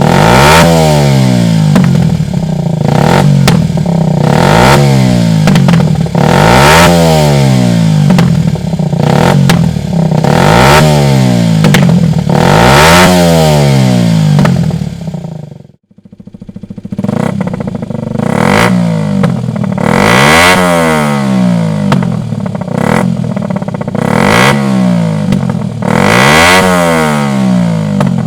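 Kawasaki Ninja 125's single-cylinder four-stroke engine, breathing through an aftermarket Dominator exhaust, revved hard over and over, about one blip every two seconds, each rev rising and falling back. About halfway through the sound drops away abruptly for a moment, then the revving starts again.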